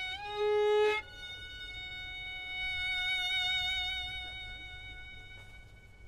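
Solo violin: a short loud note, then one long held higher note that swells, wavers with vibrato and slowly fades.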